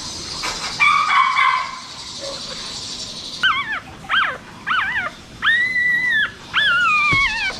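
Newborn puppy crying as its front dewclaw is snipped off with small scissors: a run of about five high, wavering squeals from about three seconds in, one held longer and the last falling in pitch.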